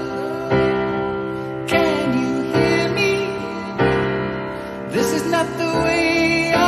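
A man singing a slow ballad in a high voice over piano chords, with a new chord struck about every second.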